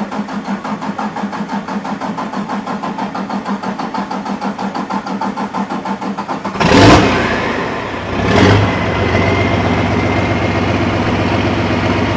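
Pulling tractor engine cranking on the starter with a rapid, even pulse for about six seconds, building oil pressure after an oil change, then firing with a loud burst, surging again about a second and a half later and settling into a steady idle with a thin high whistle.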